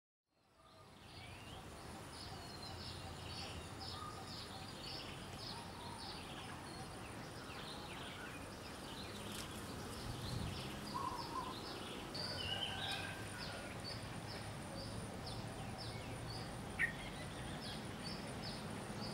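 Outdoor garden ambience fading in: birds chirping over and over in short falling notes, over a steady thin high-pitched whine and a low background hum. One sharp click sounds near the end.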